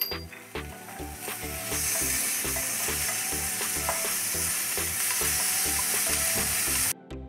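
Yellowfin tuna steaks sizzling in a hot grill pan, a steady frying hiss that cuts off suddenly near the end.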